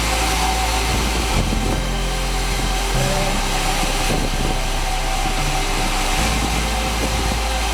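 Sawmill machinery running steadily, a continuous engine drone with no break.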